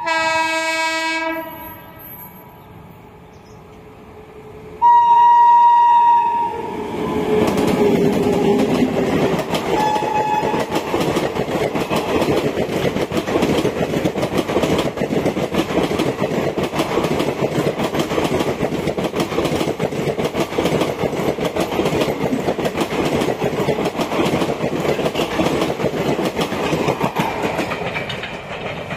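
A WAP7 electric locomotive's horn sounds in two blasts, a short one at the start and a longer, louder one about five seconds in, as a superfast express approaches. The train then runs past at speed, its coaches' wheels clattering rhythmically over the rail joints for about twenty seconds, and fades near the end.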